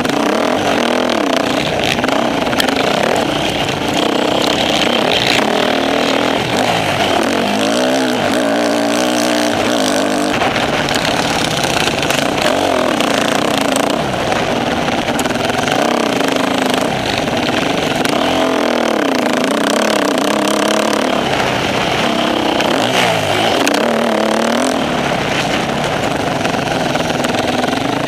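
Off-road motorcycle engine running under constant throttle changes as the bike is ridden over the course, its pitch repeatedly rising and falling as it revs up and backs off.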